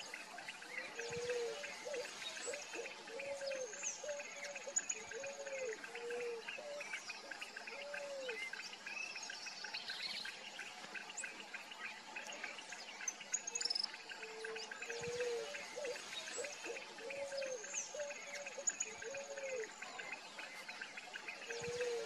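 Picazuro pigeon cooing: two long phrases of low, arched coos, several seconds apart, with another phrase starting near the end. Other birds chirp faintly at a higher pitch behind it.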